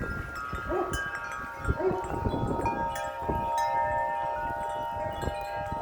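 Many wind chimes ringing together in strong, gusty wind, their overlapping tones held and layering as new strikes come in. Low wind buffeting on the microphone underneath.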